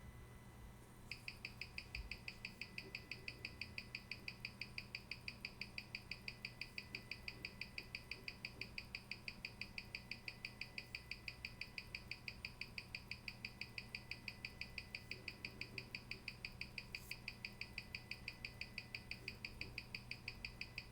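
The Panerai's hand-wound ETA 6497-2 movement ticking steadily, about five beats a second, as its rate is checked after regulation. The rate measured is about 6 seconds a day, which the owner takes as fine.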